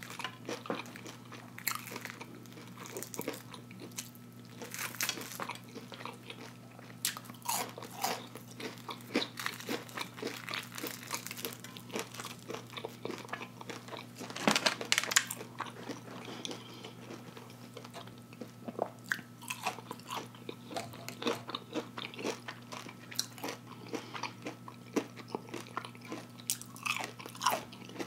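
Close-up eating sounds of fried catfish: crunching the breaded crust and chewing, in many short crisp clicks, with a louder cluster about halfway through. A steady low hum runs underneath.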